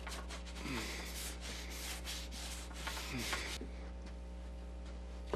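Paintbrush scrubbing red acrylic paint onto canvas: a scratchy rubbing in repeated strokes that stops a little after halfway through, over a low steady hum.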